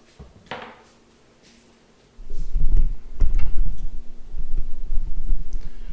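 Close handling noise: a loud, low rumble with knocks starts about two seconds in, with a sharp knock about a second later. A couple of faint clicks come before it.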